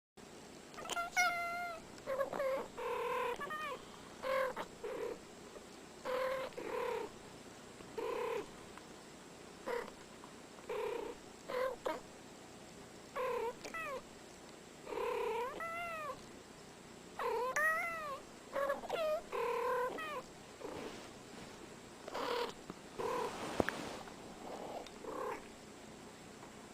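Domestic cats meowing back and forth in a long series of short calls. Each meow lasts about half a second to a second, many rise and fall in pitch, and short pauses separate them.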